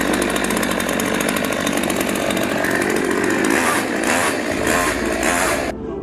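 Chainsaw running hard, cutting through an iPhone. Later on its sound rises and falls about twice a second, then it cuts off abruptly near the end.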